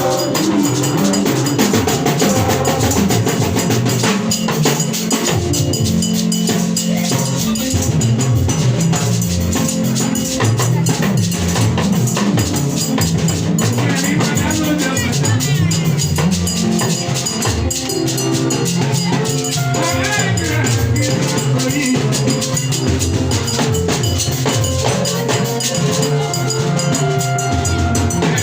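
Music with a drum kit and percussion over a moving bass line, playing a steady, busy groove.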